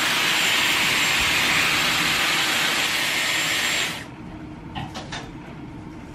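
Dyson Airwrap hair styler blowing air through its curling barrel: a steady rushing hiss with a faint high whine, cutting off suddenly about four seconds in. A few faint handling clicks follow.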